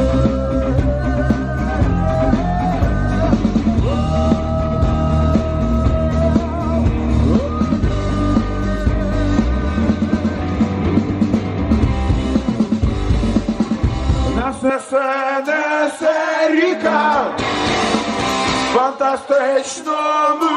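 Live rock band playing: electric guitars with long held notes over bass and drums. About two-thirds of the way through, the bass and drums drop out, leaving only the higher parts, and the full band comes back in near the end.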